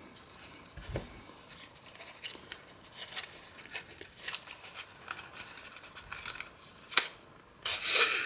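Cardstock box being handled as a cord is drawn through its punched holes: soft paper rustling and rubbing with small clicks, a sharp click about seven seconds in and a louder rustle near the end.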